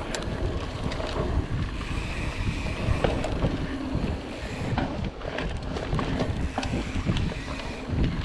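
Wind buffeting the microphone of a mountain bike's camera as it descends a dirt trail, over the rumble of tyres on the ground and frequent short clicks and rattles from the bike.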